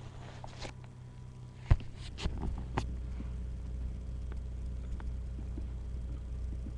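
A single sharp knock about two seconds in, followed by a few smaller clicks, after which a steady low hum becomes stronger.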